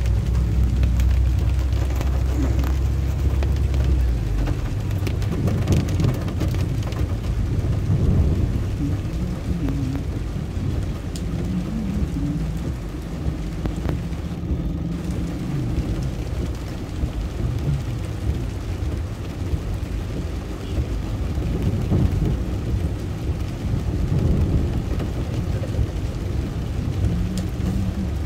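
Waterfall: falling water rushing in a steady, full roar.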